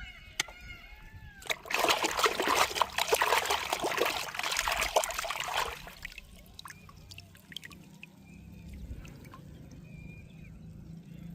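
Water pouring and splashing onto plastic toy cars for about four seconds, then quieter dripping and clicks. Short repeated chirps sound before and after the pour.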